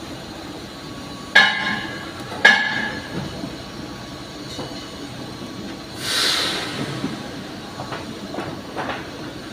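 Two sharp metal clanks about a second apart, each ringing briefly, then a short hiss about six seconds in, over a steady workshop background noise.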